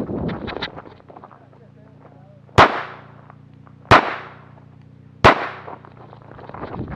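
Three pistol shots from a Tanfoglio Limited, spaced about 1.3 seconds apart, each a sharp crack that trails off quickly.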